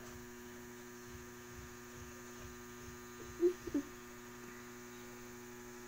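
Steady electrical mains hum with a ladder of overtones. About three and a half seconds in come two short low pitched sounds, close together.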